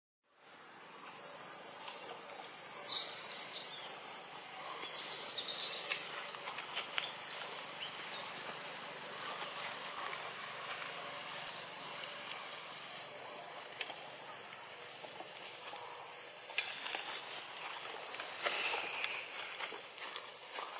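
Steady high-pitched insect drone over a constant hiss. Two brief flurries of high, wavering chirps come a few seconds in, and a few faint clicks are scattered later.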